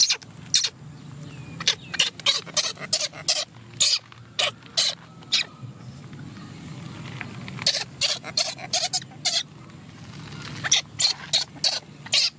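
Baby macaque giving short, high, sharp squeaks in clusters, several rounds of quick calls with short gaps between them.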